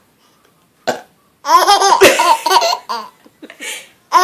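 A short burp about a second in, then a baby laughing in a burst of giggles for about a second and a half, ending with a breathy gasp.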